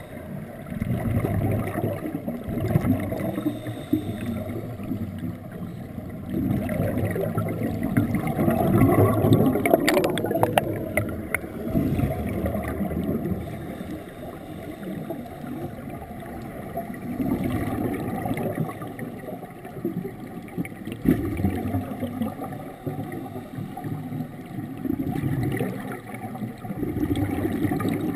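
Heard underwater: a scuba diver's exhaled bubbles rumbling out of the regulator in long surges every few seconds, with a short burst of clicks about ten seconds in.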